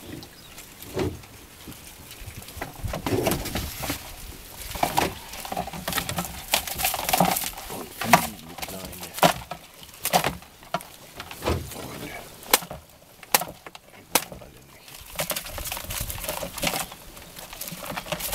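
Crabs being shaken out of a monofilament fyke net into a plastic bucket, with irregular sharp clicks and knocks as the crabs and the net's wire hoops strike the bucket, and the mesh rustling.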